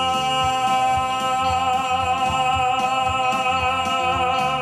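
A singer holds the long final note of a gospel song with a slight vibrato over a rhythmic instrumental accompaniment.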